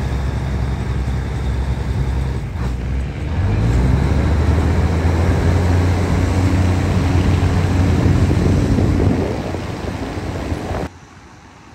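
RHN diesel railcar's engine pulling away under power, heard from on board. Its pitch rises a few seconds in, then it runs at a steady pitch before easing off. It cuts off abruptly near the end.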